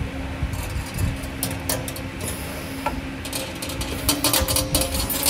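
CNC wire bending machine running as it feeds and bends 4.5 mm wire: a steady machine hum with a series of sharp clicks and clacks from the bending head and wire, busiest about four seconds in.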